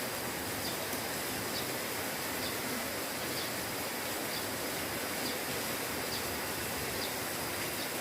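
Steady hiss of light rain falling, with a faint short high chirp repeating a little more often than once a second.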